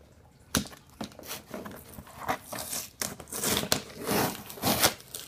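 A box's packaging being torn and crinkled open by hand: a run of irregular crackling rips that starts about half a second in.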